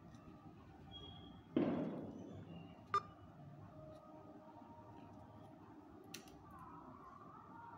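Marker pen drawn across paper in one short stroke about a second and a half in. A sharp click follows about a second later and a smaller one near the end, over faint room tone.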